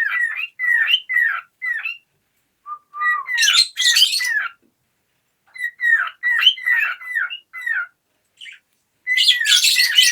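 Cockatiel whistling its song in imitation: four phrases of about five or six short, hooked whistled notes each, twice mixed with harsh, raspy squawks.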